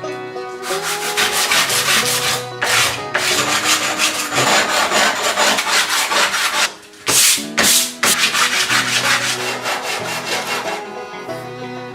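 Abrasive sanding on a metal motorcycle gear shifter to strip its tough coating, in quick repeated back-and-forth strokes that pause briefly about seven seconds in. Background music plays underneath.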